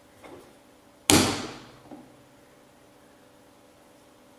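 A centre punch striking a marked point on thin aluminium sheet: one sharp metallic crack about a second in that rings briefly, with a faint knock just before it and a small tap just after.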